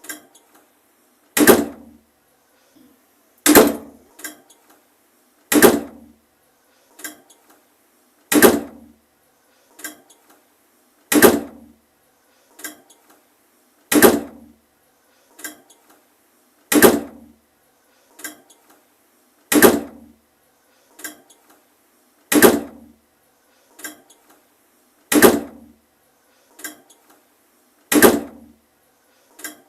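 A door shutting again and again, about every three seconds: each a sharp slam with a short ring-out, with a fainter knock between each pair of slams.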